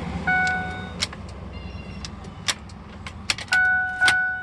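Ford F-150 cab's warning chime tone sounding twice, once early and again near the end, with sharp clicks of the ignition key being worked in between. The engine does not crank: the truck won't start after the PCM swap.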